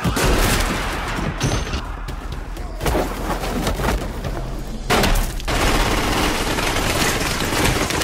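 Dense bursts of gunfire from a film action scene's soundtrack, shots running together with heavy booms and a few short lulls.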